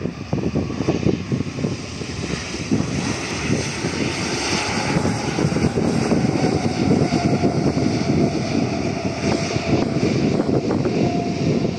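Turbofan engines of an Airbus Beluga XL running as the aircraft rolls out and slows after landing, a steady jet rush with a faint whine in the second half. Gusty wind rumbles on the microphone throughout.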